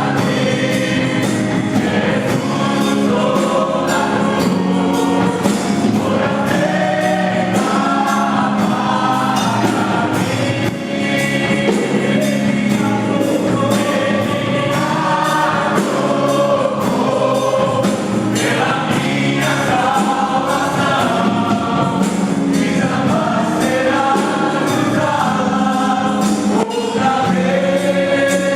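Christian gospel song: a choir singing with band accompaniment over a steady beat.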